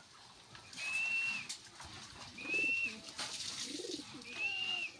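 Three long, steady whistles from a person calling a pet pigeon down to an outstretched hand, with the domestic pigeon cooing low in between.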